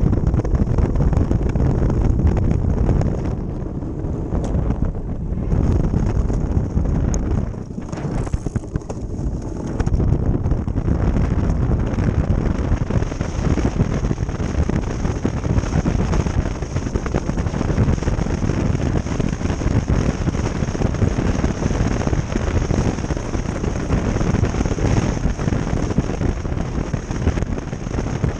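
Wind rushing over the microphone together with the rumbling hiss of an ice boat's runners sliding over lake ice, as a steady noise that eases briefly about four and eight seconds in.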